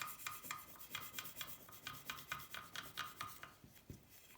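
Quick back-and-forth hand rubbing on an aluminium engine case, about four scraping strokes a second, stopping about three and a half seconds in.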